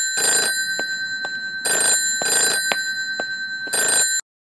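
Telephone ringing in a double-ring cadence: two pairs of short rings, then a third ring that cuts off abruptly as the call is answered.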